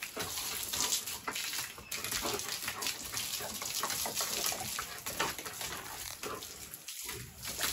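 Water from a garden hose spraying and spattering onto a wet German Shepherd puppy and a concrete floor as the dog is rinsed of shampoo.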